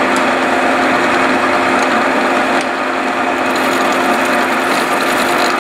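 Vertical milling machine running steadily, with several constant hum tones from its motor and gearing, as its face cutter skims the top face of a steam cylinder casting.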